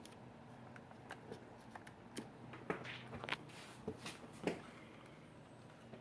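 Faint, scattered light clicks and knocks of hands handling a laptop's hard drive and case, the drive seated in its bay.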